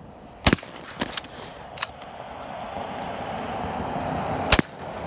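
Shotgun shots: two loud reports, about half a second in and just before the end, with three fainter shots in between in the first two seconds.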